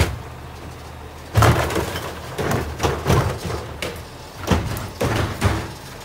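Garbage truck's Curotto-Can automated arm grabbing a wheeled trash cart, lifting and dumping it into the can: a loud bang about a second and a half in, then a run of bangs and clatters as the cart is emptied, over the truck's engine running.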